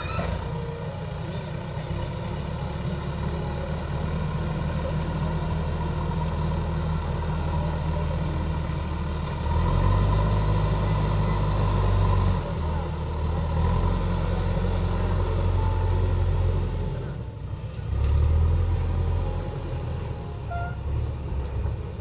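JCB backhoe loader's diesel engine running steadily, revving harder twice as the front bucket digs into and lifts the soil: for a few seconds about halfway through and again briefly near the end.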